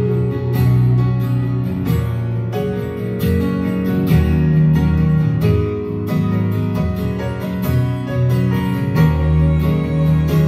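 Live acoustic guitar strumming chords over held chords from a Nord Stage keyboard, an instrumental passage of the song.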